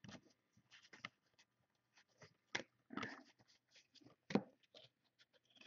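Faint, irregular clicks and brief rustles of cardboard trading cards being flipped and slid against one another by hand, the loudest click a little past four seconds in.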